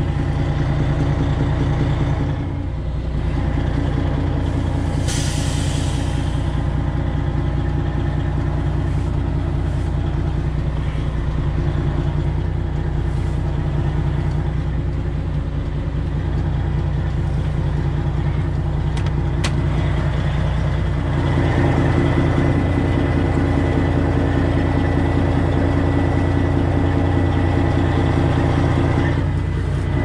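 Freightliner Classic XL semi truck's Detroit Diesel 12.7 engine running steadily at low speed during slow maneuvering. There is a short air hiss about five seconds in, and the engine note picks up and grows louder about twenty seconds in.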